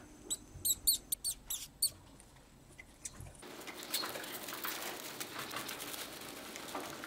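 Mice squeaking: a quick run of short, high squeaks in the first two seconds. Then, about three and a half seconds in, a steady rustle and patter of dry straw bedding as a mouse scurries through it.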